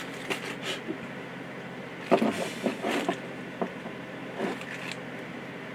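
Light, scattered clicks and knocks of hydraulic cylinder parts and a seal kit being handled, about six in a few seconds over a steady low hiss.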